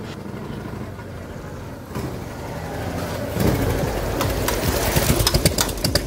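A 1993 Harley-Davidson Fat Boy's Evolution V-twin passes close by and pulls away. Its engine gets louder from about two seconds in and is loudest near the end, with a strong, uneven exhaust beat.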